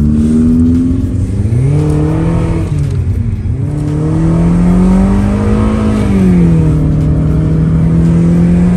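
BMW E90 engine through an aftermarket split dual exhaust, heard from inside the cabin while driving. The note rises and falls as the car pulls away and eases off, drops in pitch about three seconds in and again about six seconds in, then holds steady.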